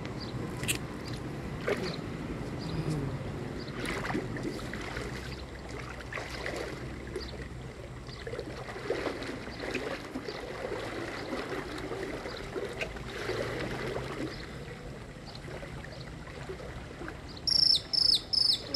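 Water in a shallow ditch sloshing and splashing as a person wades in and sits down in it. Near the end a bird chirps quickly several times.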